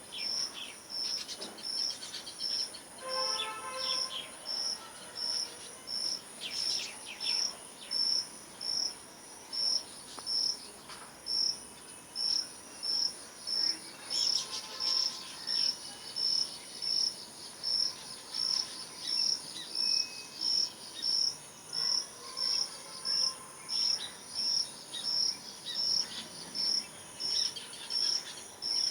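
An insect chirping in a steady, even rhythm about one and a half times a second over a constant high insect hiss. Birds chirp in short bursts now and then, a little over a second in, around 3 to 4 seconds, near 7 and 15 seconds, and near the end.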